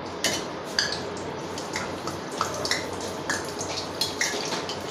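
Green chilies deep-frying in hot oil in a steel kadhai: a steady sizzle with irregular sharp pops and crackles.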